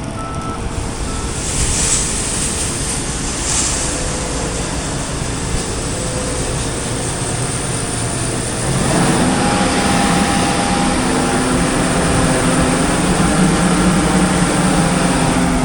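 John Deere S680 combine and grain truck running as the combine unloads wheat into the truck, a steady machinery drone. Reversing beeps fade out in the first second, and about nine seconds in a louder, steadier engine hum comes in.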